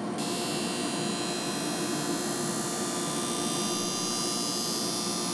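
Skate-sharpening machine running: a steady motor hum with the grinding wheel hissing against a hockey skate's steel blade. The bright grinding hiss comes in a moment after the start and then holds even.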